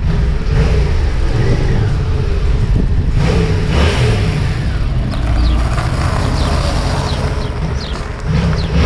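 Motorcycle engine running as the bike rides in at low speed, the revs rising and falling, with a louder blip of throttle near the end.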